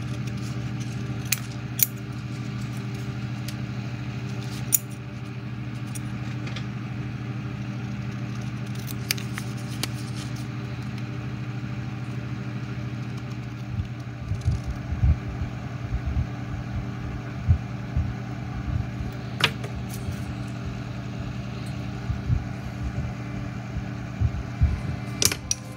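Scissors snipping a sheet of waterslide decals, with small clicks and taps of tools handled on a hobby bench, over a steady low hum. Soft knocks come more often in the second half as tools and parts are set down.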